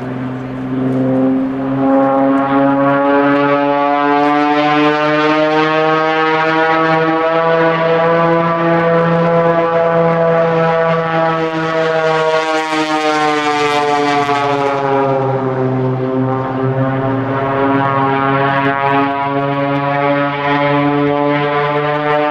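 Cessna A185F Skywagon's six-cylinder piston engine and propeller droning as the plane dives and banks overhead. The pitch creeps upward, the sound grows brighter and harsher about thirteen seconds in, then drops as the plane passes and settles into a steady drone.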